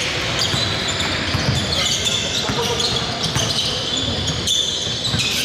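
Basketball bouncing on the court during a game, with players' voices.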